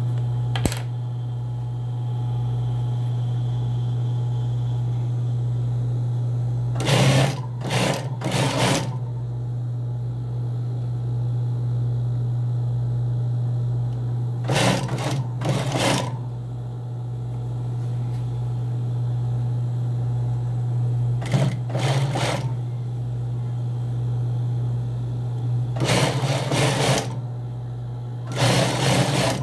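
Industrial sewing machine stitching trouser fabric in short runs, each a second or two long, coming in several groups with pauses between them. A steady low hum runs underneath throughout.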